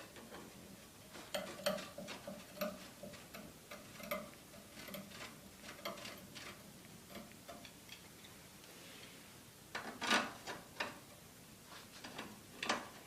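Light, irregular clicks and taps of paramotor cage side poles being handled and screwed into their threaded sockets, with a louder cluster of knocks about ten seconds in.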